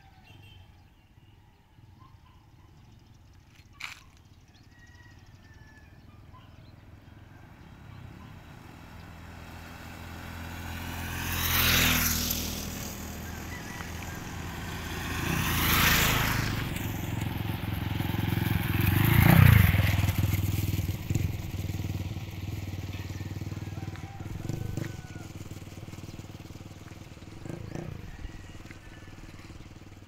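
Motorcycles passing along a road one after another, three pass-bys a few seconds apart, each engine note dropping in pitch as it goes past; the third, a little after halfway, is the loudest.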